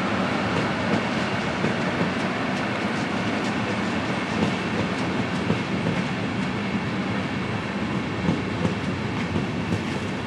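A rake of Intercity coaches moved by a diesel shunting locomotive rolls past, its wheels clicking steadily over rail joints and points.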